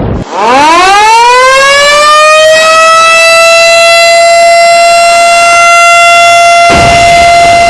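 A siren winding up after a brief drop: its pitch climbs steeply for about two seconds, then holds a steady, loud wail rich in overtones. A rushing noise joins under the tone near the end.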